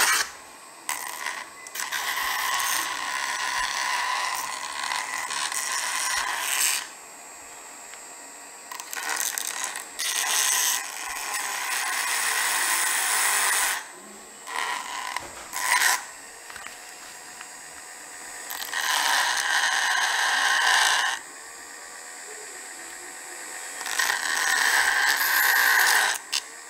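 Dremel rotary tool spinning a felt polishing wheel against the soldered metal joint of a soap dispenser pump: a steady whine with a rubbing scrape. It runs for several seconds at a time, with short pauses between passes.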